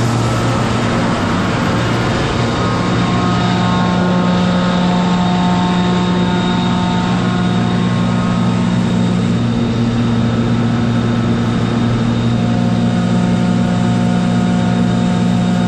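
Kaeser DS200 150-horsepower rotary screw air compressor running steadily: a loud, even hum with a constant rush of noise over it and a few faint steady whines that come and go.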